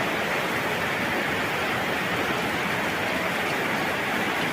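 A steady hiss of background noise with no distinct events.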